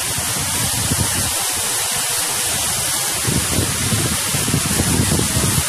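A flooded river running in a churning torrent: a loud, steady rush of water with an uneven low rumble underneath.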